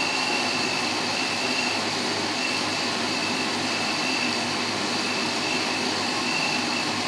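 Electric countertop blender running steadily, puréeing a liquid seafood dipping sauce of garlic, fresh chillies, lime juice and stock, with a faint high whine over the motor noise.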